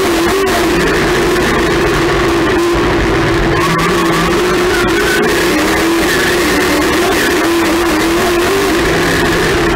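Rock music over the dirt-track race car's engine running at fairly steady high revs, loud and distorted on the in-car camera.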